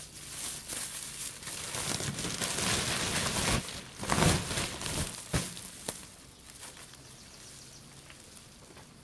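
Leaves and plant stalks rustling and crackling as they are pushed through and handled, with two sharp loud snaps about four and five seconds in; it then settles to a quiet rustle.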